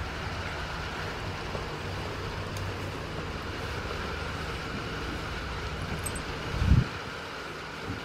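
Steady background rumble and hiss with a faint low hum, and one dull low thump near the end.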